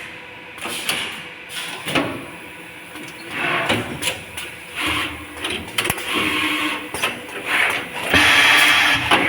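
Automatic wire-harness lug-crimping machine running: repeated short air hisses and sharp mechanical clacks from its stations, with a longer, louder hiss about eight seconds in.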